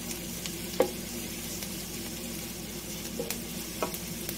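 Chopped onion and minced garlic sizzling in hot oil in a nonstick pan, stirred with a wooden spatula that knocks against the pan a few times, most sharply about a second in.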